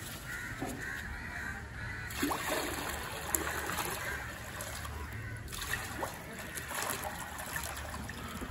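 Water pouring from a tipped plastic bucket into shallow pool water: a steady trickling splash as small koi and gouramis are released.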